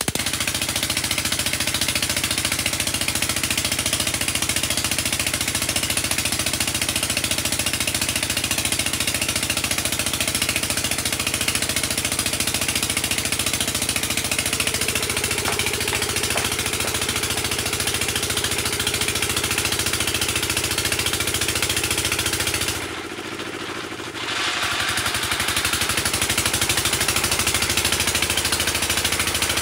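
Engine of a well-drilling rig running steadily. Its pitch creeps up slightly after the middle, and near the end the sound drops and is muffled for about two seconds before returning.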